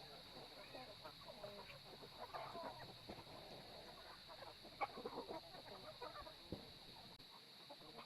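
Chickens clucking faintly in short scattered calls, with a few soft taps among them, over a steady high hiss.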